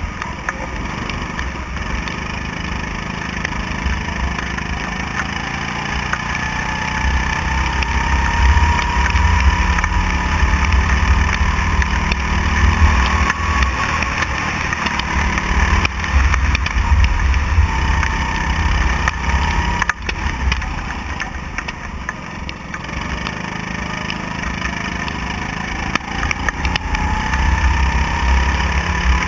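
Go-kart engine running under the driver, its pitch rising and falling as the throttle opens on the straights and closes into the corners, over a heavy low rumble of wind buffeting the open kart's camera.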